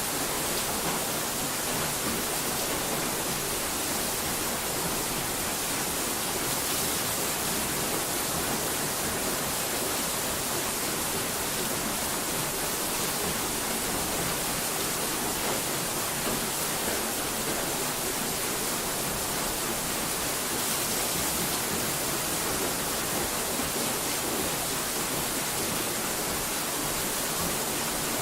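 Steady hiss of noise, even and unbroken, brighter in the high pitches, with no separate sounds or changes in it.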